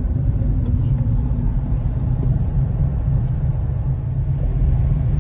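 Steady low rumble of road and engine noise inside the cabin of a moving Hyundai car driving through city traffic.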